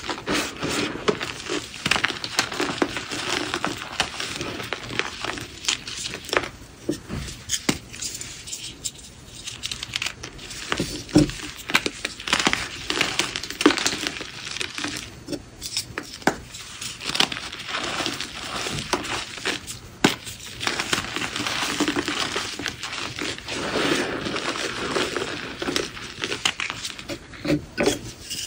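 Hands crushing and squeezing reformed gym chalk: a dense run of crunchy crackling and soft powdery scrunching, with a louder snap now and then as harder pieces break.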